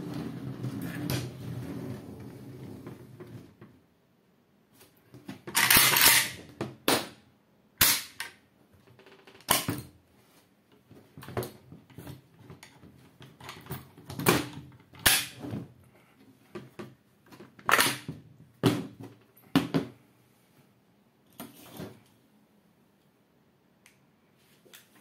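Metal scraping and sliding of a Type 56 AK's spike bayonet being swung and folded back under the barrel, lasting about three seconds. Then a series of about a dozen sharp metallic clacks and clicks as the rifle is handled and its magazine is taken out.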